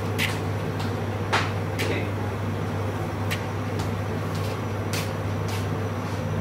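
Steady low electrical hum of an induction cooktop heating a steel pot of liquid, with a few scattered light clicks.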